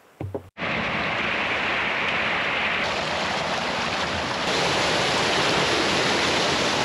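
Water churning and splashing in a crowded rainbow trout raceway, with fish thrashing at the surface and water pouring in over the inlet. A steady rushing splash starts suddenly about half a second in and grows a little louder near the end.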